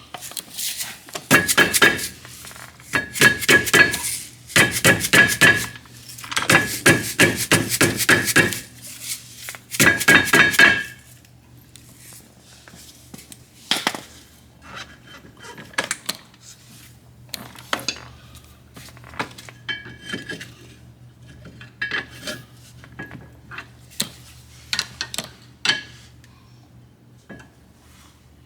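Rapid rubber-mallet blows on metal brake parts, knocking stuck, Loctited parts loose, in five quick bursts over the first ten seconds or so, each blow setting the metal ringing. After that come scattered lighter metal clinks as the parts are handled.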